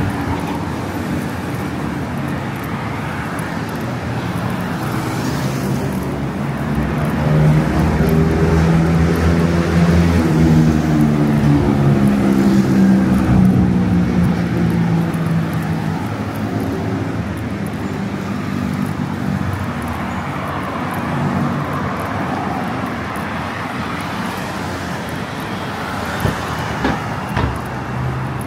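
Busy city road traffic with engines running. One heavier vehicle's engine hum grows louder for several seconds in the middle, then fades. A few short knocks come near the end.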